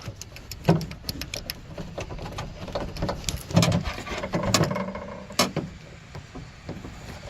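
Irregular small plastic clicks and knocks from hands working the trunk latch's electrical connector, pressing at its release tab and tugging to unplug it. The connector is stubborn and does not come free.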